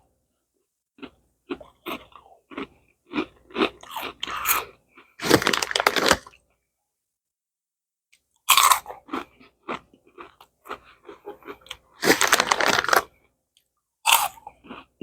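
A person chewing crunchy snack chips close to the microphone. There are bouts of crisp crunching, a pause of about two seconds midway, then more crunching.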